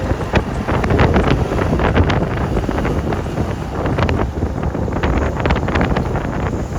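Wind buffeting the microphone over the rumble of a moving vehicle on the road, with frequent short rattles and knocks throughout.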